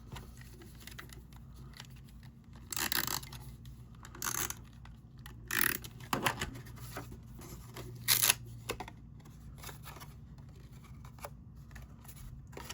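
Cardstock being handled and pressed into place by hand: several short, separate rustles and scrapes of paper over a low, steady room hum, the loudest about eight seconds in.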